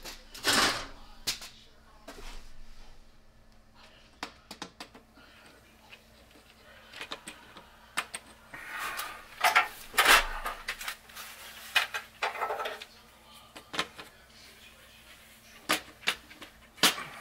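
Scattered clicks, taps and knocks, with a few louder rustling bursts, as a plastic LED strip light fixture and its cord are handled and fitted against a wooden ceiling joist.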